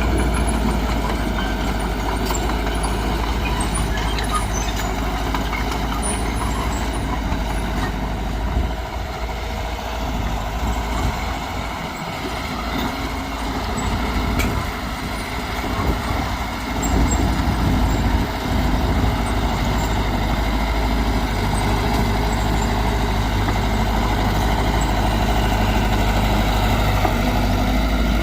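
Heavy diesel earthmoving machinery running with a steady low rumble. It eases off for several seconds about a third of the way in, then picks up again.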